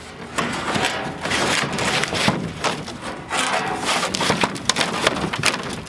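A large porcelain-enamel steel sign being wrestled out of a plywood shipping crate, scraping and knocking against the wood over and over.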